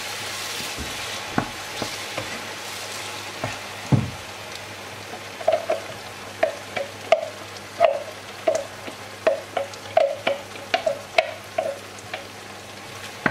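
Grated tomato sizzling in hot olive oil with sautéed onion and pepper, stirred with a wooden spoon, the sizzle loudest at the start and dying down. One low thump about four seconds in, then a run of quick knocks, about two a second, as the wooden spoon scrapes and taps the last tomato out of a plastic container over the pan.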